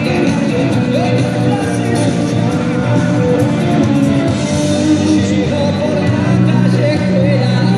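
Live rock band playing through a stadium PA, with singing over the band.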